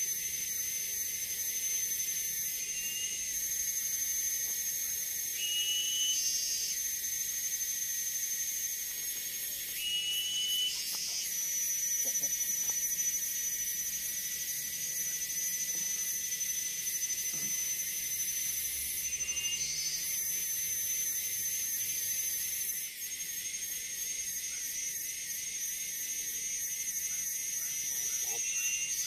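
Chorus of tropical forest insects: a steady, high-pitched whine with pulsing trills above it and short chirps repeating every few seconds.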